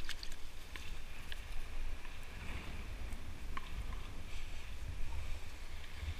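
Low rumble of wind on the microphone, with a few faint clicks and scrapes as the digging tool and metal detector are handled.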